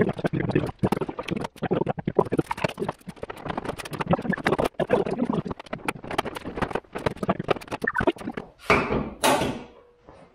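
Plastic front bumper cover and fender of a 2006 Subaru Impreza being handled and pushed into place: a dense run of knocks, clicks and rattles of plastic and sheet metal, with two brief rushing sounds near the end.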